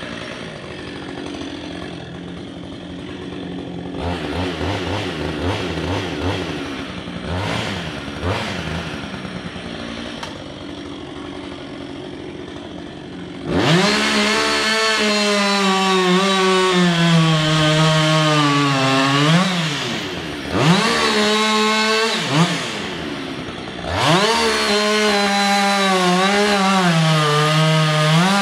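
Two-stroke chainsaw running low for about the first thirteen seconds, then opened up to full throttle and cutting into the base of a spruce trunk, its pitch sagging under load. It eases off briefly twice, about twenty and twenty-three seconds in, before running flat out again.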